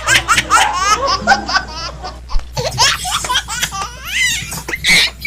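Laughter in quick, high-pitched pulses; about two and a half seconds in it changes abruptly to high, sliding vocal sounds.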